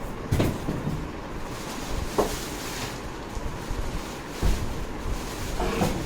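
A few separate knocks and thumps, four in all, over a steady low background noise.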